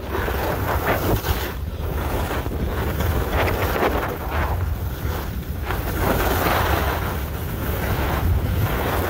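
Wind buffeting the microphone of a skier moving at speed, a heavy low rumble throughout, with the hiss and scrape of skis carving turns on packed snow, rising and falling about once a second.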